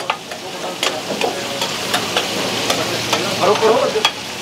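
Chicken, onions and tomatoes sizzling in oil on a large flat tawa griddle. A metal spatula scrapes and clacks against the griddle again and again as the food is stirred.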